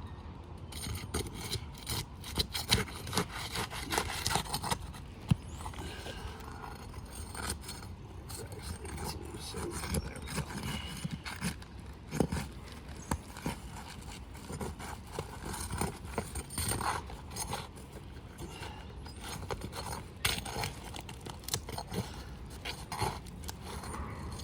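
Roof shingles being pried up and separated: irregular scraping and rubbing with many sharp clicks and knocks as the shingles and their nails are worked loose.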